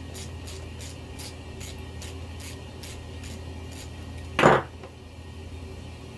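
A run of light clicks, about two to three a second, from hand work on an RC crawler's wheel and hub as the wheel is taken off. About four and a half seconds in comes a single loud clatter, like a part or tool set down on the bench.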